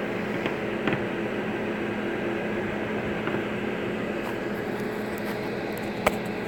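Kitchen range hood fan and a small personal fan running with a steady hum, and a couple of faint clicks about a second in and near the end.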